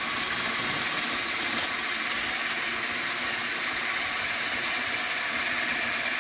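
Tramontina 10.8 V cordless drill-driver running steadily at full speed, its 8 mm masonry bit grinding into cement mortar and ceramic brick. It is a continuous whir with no hammering, as this drill has no impact mode.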